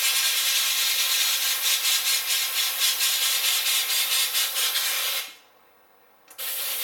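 Double-action airbrush spraying thinned black paint, a steady hiss of air and paint mist. About five seconds in it cuts off for roughly a second, then starts again just before the end.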